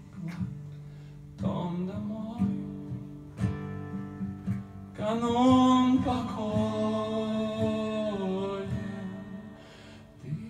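Acoustic guitar strummed live, with a man singing; he holds one long note about five seconds in, and the music dies away near the end.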